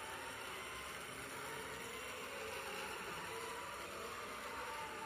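Märklin model train running along the track: a steady electric-motor whir with a faint, slightly wavering whine.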